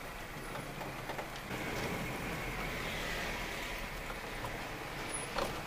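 Steady driving noise heard inside a car's cabin as it rolls slowly over a dirt and gravel lot: the engine running, with tyre noise from the rough ground, a little louder from about a second and a half in.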